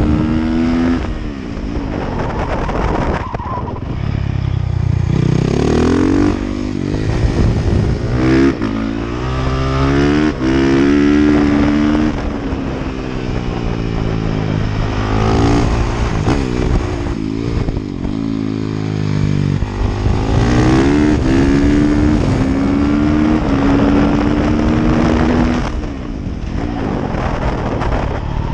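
Honda CRF450R supermoto's single-cylinder four-stroke engine, recorded on board, being ridden hard around a paved track: the pitch climbs under throttle, drops sharply at each gear change or when the throttle shuts for a corner, and climbs again, over and over.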